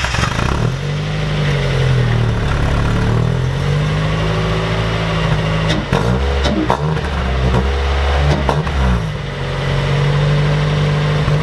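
Mazda Miata NB's four-cylinder engine, freshly fired up through a new M2 Motorsport exhaust with its silencer fitted, idling steadily. It gets a few quick revs between about six and nine seconds in, then settles back to idle. Its tone is close to a stock exhaust.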